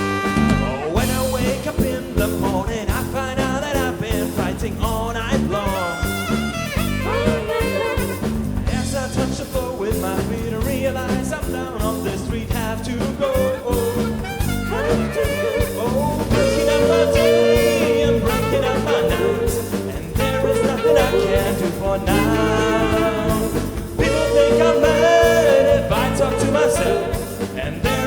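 Live band playing an upbeat, swing-flavoured medley tune, with drums, bass, guitar and keyboards under a wavering lead melody line. The music gets louder a little past halfway.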